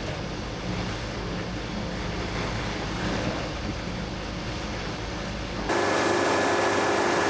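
Portable band sawmill's engine running with a low, steady hum. About six seconds in the sound turns abruptly louder, with a steady whine on top.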